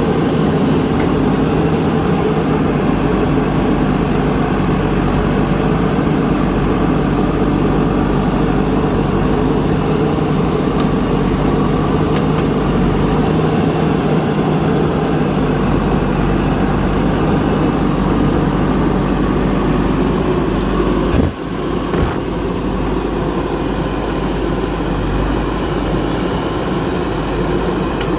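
Heavy diesel machinery engine running steadily at a constant speed, with one sharp knock about two-thirds of the way through.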